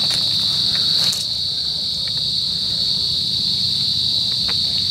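A steady, high-pitched insect chorus that sounds as one continuous buzzing trill, with a few faint clicks.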